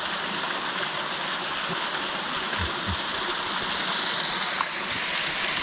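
Creek water rushing over a rocky waterfall: a steady, even rush.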